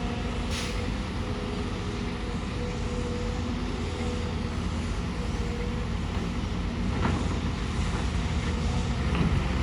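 Excavator diesel engine running steadily, with two brief clicks, one about half a second in and one about seven seconds in.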